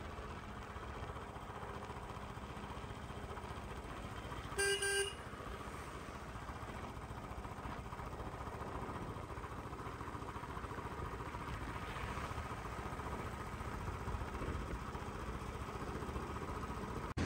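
Motorcycle engine running steadily with road noise as the bike moves along. A vehicle horn sounds once, for about half a second, about five seconds in. The horn is the loudest thing heard.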